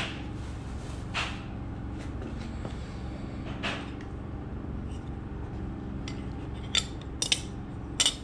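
Black plastic terminal cover being handled and fitted onto an electric air-compressor motor's wiring end: a few light clicks and taps, with a quick cluster of sharper clicks near the end as it snaps into place. A steady low hum runs underneath.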